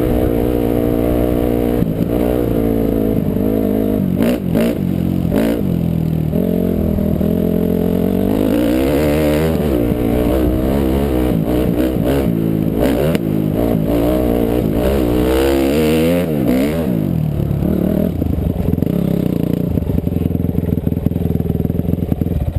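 2006 Honda CRF250R's single-cylinder four-stroke engine being ridden, its pitch rising and falling repeatedly as the throttle is opened and closed, with a few sharp knocks about four to five seconds in.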